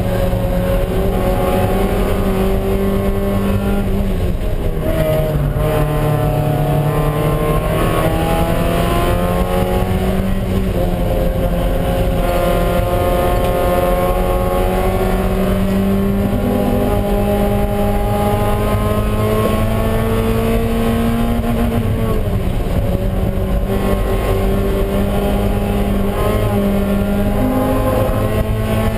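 Spec Miata's four-cylinder engine at racing revs, heard from inside the cockpit. The pitch drops about five seconds in and again about two-thirds of the way through as the car lifts and shifts for corners, then climbs back up under power.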